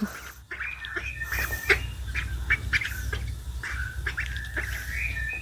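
A white duckling peeps many times in short, high calls as it feeds, with sharp clicks of its bill knocking against the food plate and the steel water bowl.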